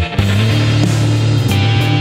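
Background rock music, with a low note held through most of it.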